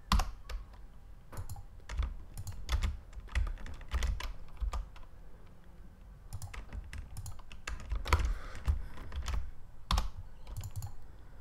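Keys tapped on a computer keyboard: irregular, separate clicks scattered throughout, sometimes two or three close together, as shortcut keys are pressed.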